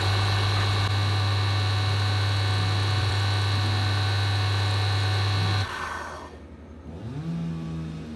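Wood lathe's electric motor running at speed with a steady hum, spinning a pen blank while finish is applied. It stops about two-thirds of the way through, and a fainter hum rising in pitch follows near the end.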